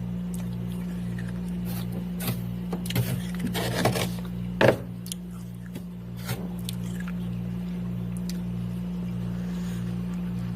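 Freezer frost and ice being scraped and cracked loose: scattered scrapes and crackles in the first half, loudest in one sharp crack a little under halfway through, over a steady low hum.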